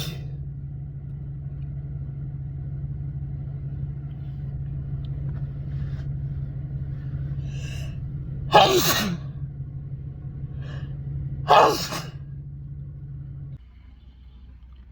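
A person sneezing twice, about three seconds apart, each loud sneeze preceded by a short sharp intake of breath. A steady low hum runs underneath and cuts off near the end.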